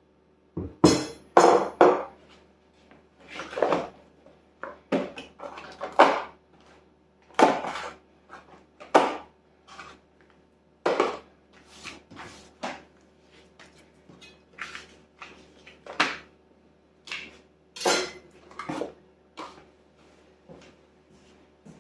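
Parts of an engine rebuild kit and their packaging being handled: irregular clinks, knocks and rattles, some in quick clusters, with short pauses between.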